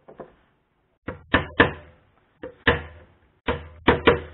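A hammer tapping a thin 1 mm nail into 8 mm plywood. It gives a run of sharp light taps in groups of two or three, each with a brief ring.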